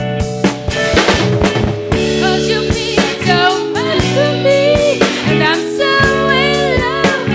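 Live rock band playing, from an analog recording: drum kit keeping a steady beat under bass and guitar chords, with a melody line bending in pitch coming in about two seconds in.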